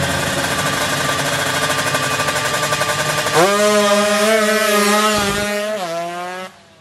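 Several drag-racing motorcycle engines revving hard together at the start line, then one bike launches about three and a half seconds in and runs away at high revs, its pitch stepping down near the end as it fades into the distance.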